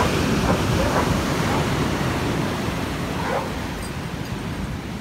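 Ocean surf breaking and washing in, with wind noise on the microphone.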